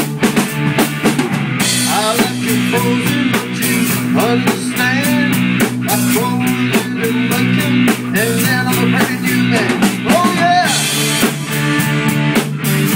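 Rock music with a drum kit beat under steady low bass tones. From about two seconds in until about ten and a half seconds, short gliding notes rise and fall over the beat.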